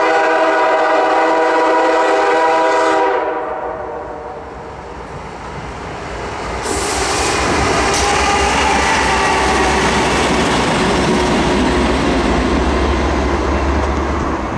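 CSX GE CW40-8 diesel locomotive 7731 sounds its multi-chime air horn in one long blast of about three seconds, which then fades away. From about six seconds in, the two GE diesel locomotives (CW40-8 and ES40DC) run past with engine rumble and wheel noise, growing louder toward the end.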